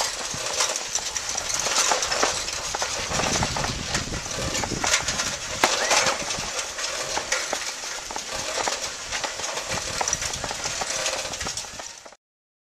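Bicycles rattling over a rough murram dirt road, with many small clicks and knocks over steady road noise; it cuts off suddenly about 12 seconds in.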